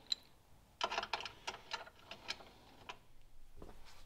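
Steel wrenches clicking against the cab door striker's bolt, nut and washers as it is being tightened: a run of sharp, irregular metallic clicks starting about a second in, thinning out after about three seconds.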